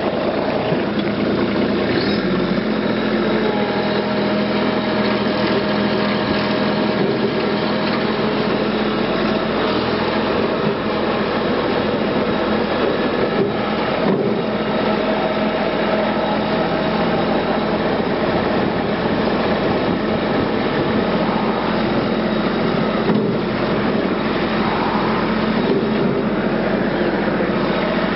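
Farm tractor engine running steadily while the tractor drives along, a constant engine note with no change in speed.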